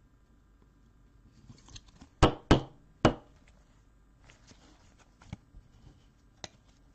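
Three sharp knocks on a tabletop in quick succession, with fainter ticks and light rustling of cards being handled around them.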